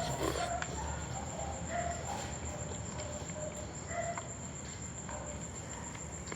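Insects trilling steadily at a high pitch, with faint short chirps and a few soft clicks scattered through it.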